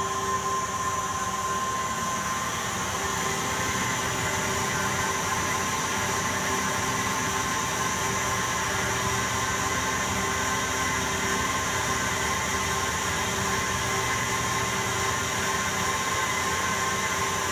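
Harrison Alpha 400T CNC lathe running under automatic feed, its spindle turning aluminium stock while the tool takes a 0.2 mm-deep parallel turning pass. The machine hum is steady, with several steady whining tones held throughout.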